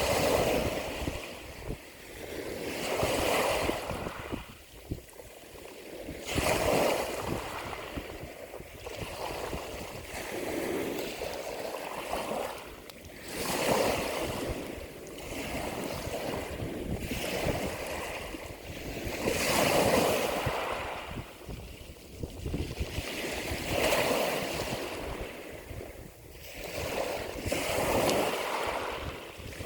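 Sea waves washing in and drawing back, each surge swelling and fading about every three to four seconds.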